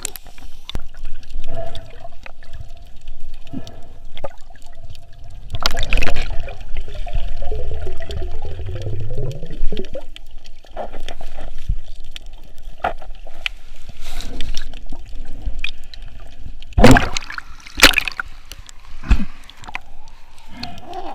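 Water sloshing and gurgling around a snorkeler's camera, with scattered sharp clicks and knocks, loudest twice about a second apart near the end, and a low hum rising in pitch around the middle.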